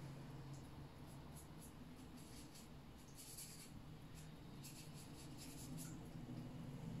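Faint brushing of a paintbrush loaded with gouache stroked across paper on an easel, in short swishes that come in a few clusters, over a low steady hum.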